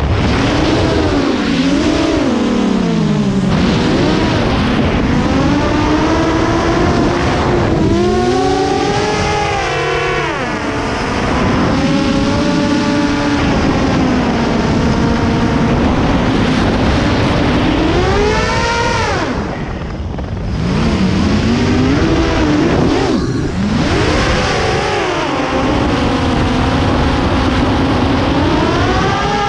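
FPV drone's electric motors and propellers, loaded with a 1.5 kg dummy camera, whining steadily as heard from its onboard camera. The pitch rises and falls with the throttle, with several sharp surges upward and a brief drop about two-thirds of the way through.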